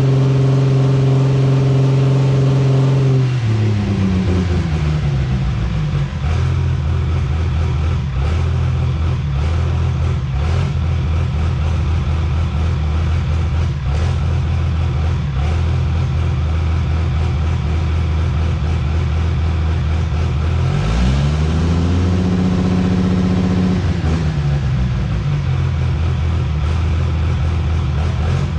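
Cummins inline-six turbo diesel running at a raised speed, then dropping to idle about three seconds in. It idles, is revved once about two-thirds of the way through, holds there briefly, and settles back to idle.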